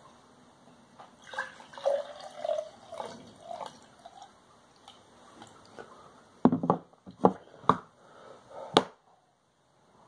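Tea poured from a plastic pitcher into a glass, gurgling and splashing for a couple of seconds, followed by a handful of sharp knocks and clinks as the pitcher and glass are handled and set down.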